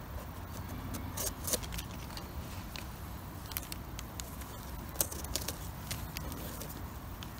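Serrated knife scraping and cutting the dirty base of a porcini stem, a run of small irregular clicks and crackles over a steady low rumble.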